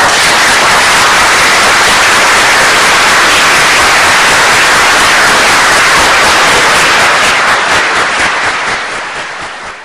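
Audience applauding, loud and steady. The applause starts suddenly and dies away over the last two seconds or so.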